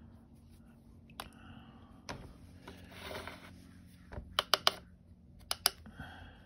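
Light clicks and taps of painting tools being handled out of sight, including a quick run of three sharp taps about four and a half seconds in and two more a second later, with a short soft scrubbing, such as a brush working paint on a palette, between them.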